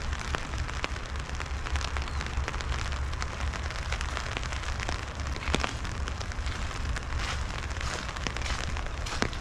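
Rain falling on an umbrella held just over the microphone: a dense, irregular patter of drop ticks, over a steady low rumble.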